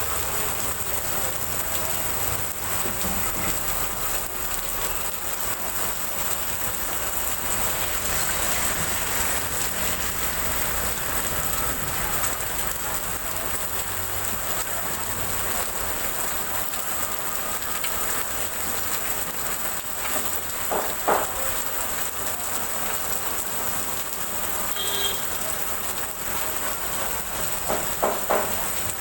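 Heavy rain falling steadily on a flooded street and pavement, an even hiss throughout. A few short louder sounds break through about three-quarters of the way in and again near the end.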